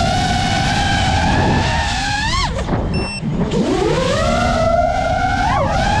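FPV quadcopter's electric motors and propellers whining at a steady pitch, then rising sharply about two and a half seconds in as the throttle is punched, dropping away briefly, and climbing again near the end. A low rushing wind noise runs underneath.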